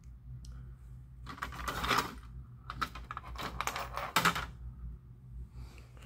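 Light clicking and clattering of small plastic parts and loose screws being handled, in two flurries: about a second in, and again from roughly three to four seconds in.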